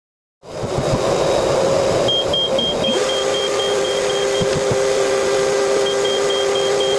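Router running in a makeshift router table, coming in suddenly near the start as a loud, steady whine. About three seconds in its pitch steps down as the bit takes load, cutting into a piece of birch fed along the fence.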